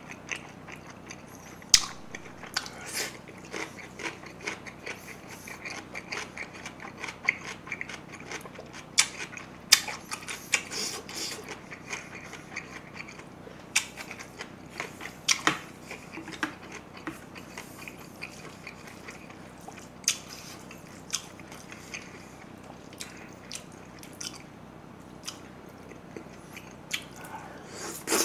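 Close-miked chewing and mouth smacking of mouthfuls of rice mixed with spicy marinated crab, with many sharp clicks throughout; the loudest come about two, ten and fifteen seconds in.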